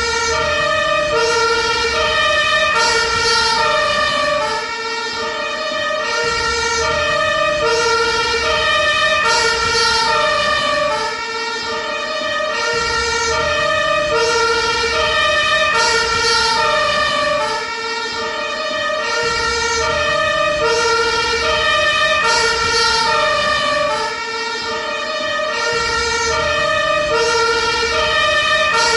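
Ambulance two-tone siren sounding continuously, alternating between a high and a low pitch, each held for well under a second. The loudness ebbs slightly about every six seconds.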